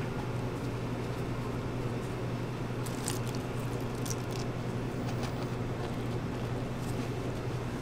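Steady low machine hum from equipment in a small food stall, with a few faint soft clicks and rustles as gloved hands fold a thin crepe over scoops of ice cream.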